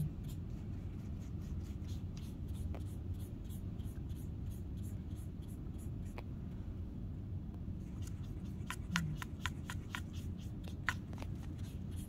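A Chinese paintbrush stirring and dabbing paint in a palette well, making light scratchy taps and scrapes that come thickest near the end, over a steady low room hum.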